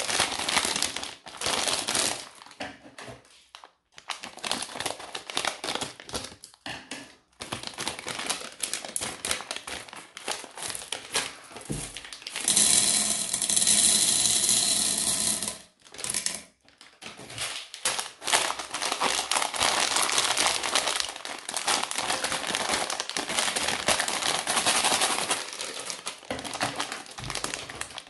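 Plastic candy bags crinkling as they are handled. About twelve seconds in, a few seconds of steady rattle as Skittles pour from the bag into a platter compartment.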